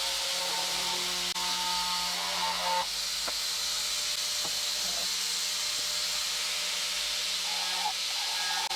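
Small electric power tool running steadily, a loud even hiss with a faint whine that drops out about three seconds in and comes back near the end.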